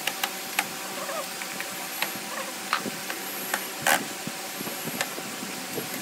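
Cordless drill driving screws into wooden pallet slats, with scattered sharp clicks and knocks; the loudest knock comes about four seconds in.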